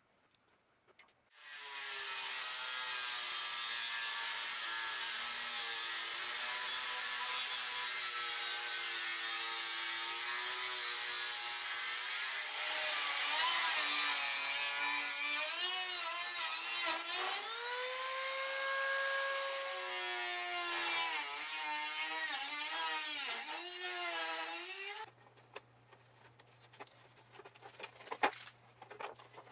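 Electric grinder grinding steel, its whine wavering in pitch as the load changes. Partway through it rises to a steady higher pitch for a couple of seconds, as if spinning free, then drops back under load and cuts off suddenly shortly before the end.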